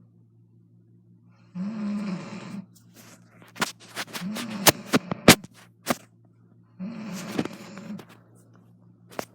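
A woman snoring, three snores about two and a half seconds apart, each lasting about a second with a low pitch that rises and falls. A cluster of sharp clicks comes between the second and third snores, with one more click near the end.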